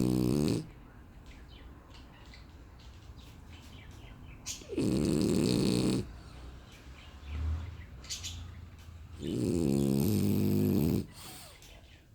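French bulldog snoring in its sleep: loud snores of a second or two each come about every four and a half seconds, with a shorter, softer snore between two of them.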